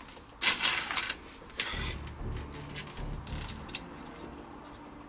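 Handling noise from an airsoft M4 rail handguard and its screws: two short scraping, rustling sounds about half a second and a second and a half in, followed by a few light clicks.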